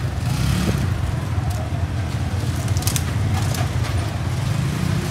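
Steady low rumble of passing street traffic, with a few light crackles and rustles of crusty baguette being opened and filled by plastic-gloved hands.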